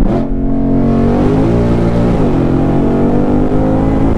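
2020 Shelby GT500's supercharged 5.2-litre V8 under hard acceleration in third gear, heard from inside the cabin. It comes on loud right at the start and pulls from about 3,700 to over 6,000 rpm.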